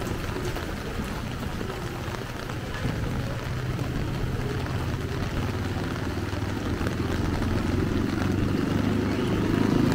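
A motor vehicle engine running close by, getting louder over the last few seconds as it nears, over a steady hiss of rain.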